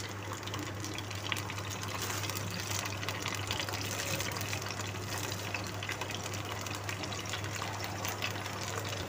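Hot cooking oil sizzling steadily in a pan, with fine crackles, as cumin seeds and ginger-garlic paste fry in it.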